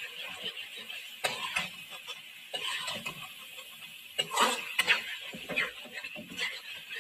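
Metal spoon scraping and knocking against a metal karahi as boneless chicken is stirred in hot oil and masala, irregular scrapes with a cluster of sharper knocks about four to five seconds in, over a steady frying sizzle.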